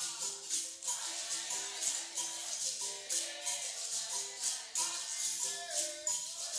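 Capoeira roda music: a berimbau sounding short repeated notes over a steady rhythm of pandeiro jingles and caxixi shaking.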